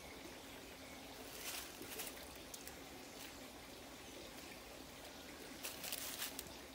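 Faint steady trickle of a small creek, with a few brief rustles about a second and a half in, around two seconds, and again near the end.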